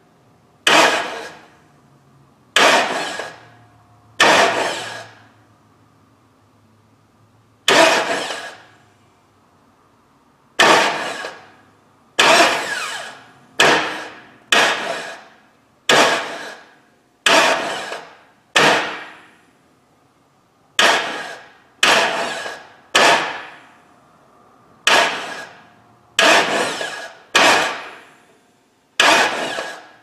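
Starter motor of a 1999 Chevy Suburban's 5.7 (350) small-block V8 bumped about twenty times with a remote starter button. Each bump is a short burst of cranking that starts sharply and dies away within a second, turning the engine a little at a time without firing, its distributor out.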